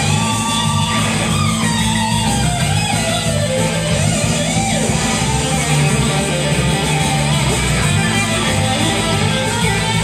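Electric guitar playing a surf-guitar instrumental: a lead melody with notes that slide and bend in pitch.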